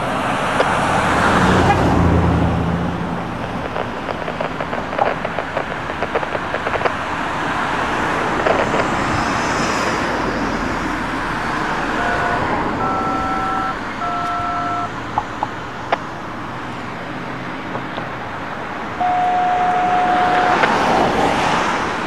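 Steady road-traffic noise from vehicles passing close by, with one vehicle's engine rumbling past near the start. A few short, faint steady tones sound about halfway through and once more, longer, near the end.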